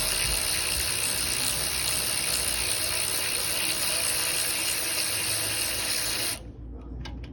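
A loud, steady hiss of pressurized spray or air that cuts off sharply about six seconds in, followed by a few light clicks.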